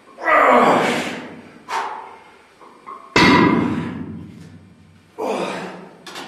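A loaded EZ curl barbell is set down on the gym floor with a heavy thud about three seconds in. Loud gasping breaths from the lifter come before and after it, at the end of a hard set of pullovers.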